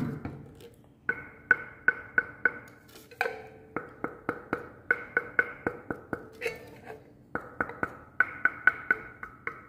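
Fingers tapping over and over on an erhu's solid one-piece African zitan soundbox, each tap a sharp knock with a short ringing tone, about two to three taps a second, with brief pauses and a few lower-pitched knocks at one point. The maker takes the clear ring as the sign of very dense, oily wood.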